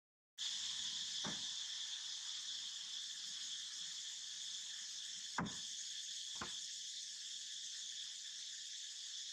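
Steady high-pitched chorus of insects, like crickets or cicadas. The sound cuts out briefly at the very start. Three short clicks come near the middle, the loudest about halfway through.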